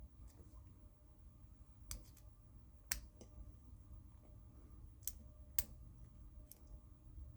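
Lock pick working inside a lock, giving a handful of sharp, faint metal clicks at uneven intervals, the loudest about three seconds in.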